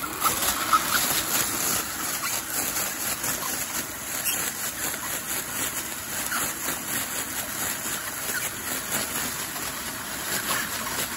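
TJ400 air cushion machine running, inflating and heat-sealing bubble film as it feeds it out: a steady, even whir with a fine, rapid crackle.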